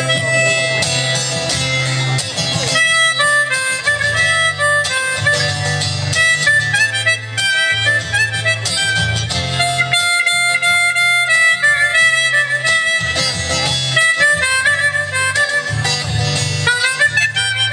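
Harmonica playing a melody over guitar accompaniment with a moving bass line: the instrumental introduction to a song.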